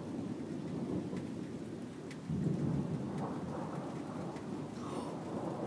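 Thunder rumbling low and continuously, with a sudden louder peal about two seconds in that keeps rolling, over steady rain.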